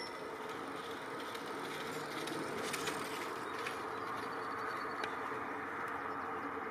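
Steady background noise, like a distant hum, with a few faint clicks scattered through the middle.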